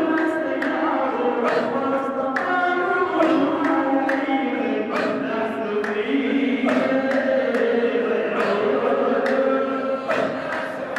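Sufi dhikr chanting: voices singing together in long held notes that step up and down in pitch, over a steady percussive beat a little under once a second.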